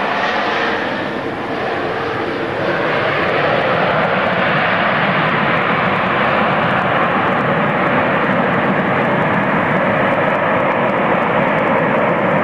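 Jet noise from a four-engined Airbus A340 rolling out on the runway just after touchdown: a steady, loud noise that swells about three seconds in and then holds.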